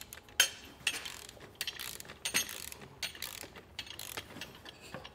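A torque wrench's ratchet clicking in short runs as it tightens bolts, with brief pauses between strokes.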